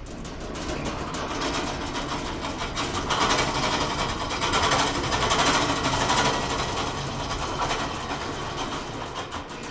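Home-built bandsaw mill running, a steady mechanical clatter with a fast rattle and hiss that swells in the middle and eases off near the end.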